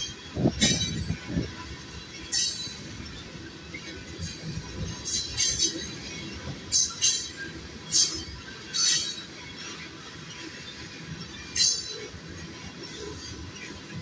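Freight train tank cars rolling past: a steady rumble of steel wheels on rail, broken by about ten short, high squeals from the wheels at uneven intervals.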